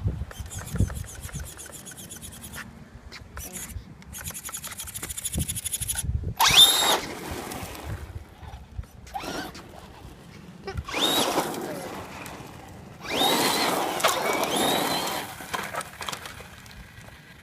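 Lipo-powered electric RC car driving on gravel. Three times the motor whines up in pitch as it accelerates and then holds, with a rush of tyre noise: about six seconds in, around eleven seconds, and for a couple of seconds from about thirteen seconds.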